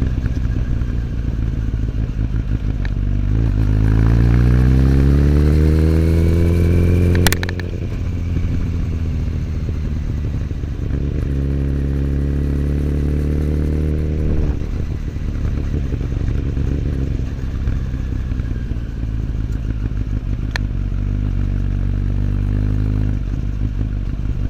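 Kawasaki ZX10R inline-four motorcycle engine with an Akrapovic slip-on exhaust, running on the move. The revs climb for a few seconds, break off with a sharp click about seven seconds in, and later hold steady for a few seconds before easing off.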